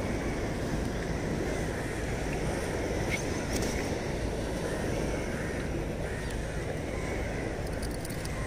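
Steady wash of sea surf with wind on the microphone. Faint bird calls come and go over it.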